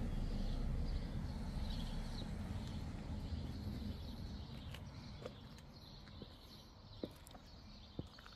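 Low rumble of a passing vehicle fading away over the first few seconds, with small birds chirping. From about halfway, sharp footsteps tap on the pavement about once a second.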